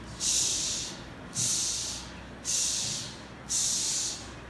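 A woman's voice repeating a long, hissed 'ch' sound like a steam locomotive, four times at about one a second, each starting sharply and trailing off.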